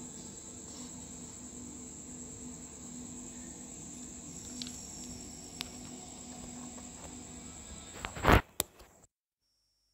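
Steady high-pitched whine over faint hum and hiss, with a couple of faint clicks. A loud thump comes about eight seconds in, followed by a smaller one. Then the sound cuts out suddenly to dead silence, a dropout in the recording.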